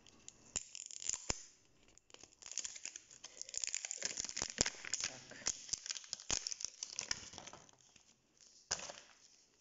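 Plastic wrapping on an L.O.L. Surprise toy ball being peeled and crinkled by hand, with scattered sharp clicks. The crinkling is busiest from about two to eight seconds in, with one short burst near the end.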